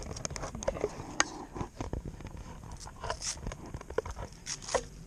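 Irregular clicks, knocks and rustles of hands handling the RC crawler's LiPo battery and its wiring.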